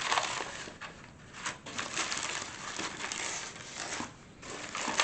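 Plastic rustling and crinkling with small clicks and ticks, as small plastic kit parts are handled and searched through.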